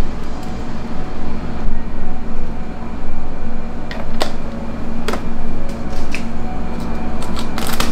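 Steady machine hum, like a fan or air conditioner, with a few sharp plastic clicks as a clear dome lid is handled and fitted onto a plastic drink cup, several clicks together near the end.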